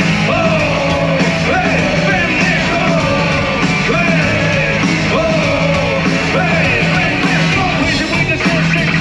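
Live rock band playing at full volume in a stadium, heard from within the crowd, with voices singing and yelling over the music.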